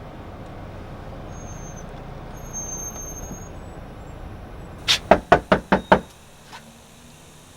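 Steady road noise inside a moving car, then a knuckle knocking on a door: about six quick raps in a second, near the end.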